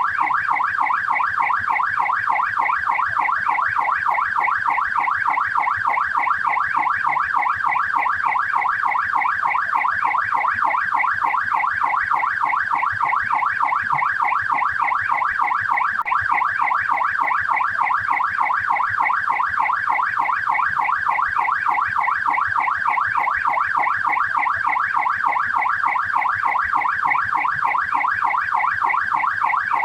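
Australian police car's yelp siren sounding continuously: a fast up-and-down wail repeating several times a second, steady and unbroken.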